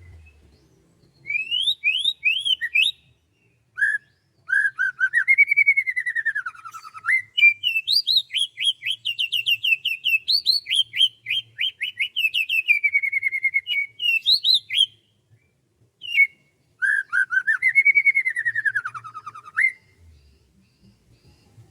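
A songbird singing phrases of quick, repeated chirping notes that sweep up and down in pitch. There are short pauses between phrases, and the longest phrase runs about ten seconds.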